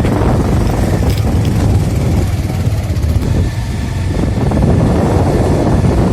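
A vehicle travelling along a poor road, giving a steady low rumble of engine and road noise.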